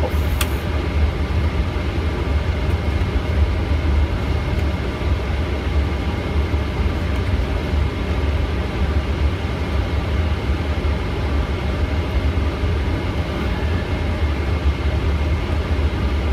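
Boeing 777 taxiing in, heard from inside the flight deck: a steady deep rumble with faint steady whining tones above it.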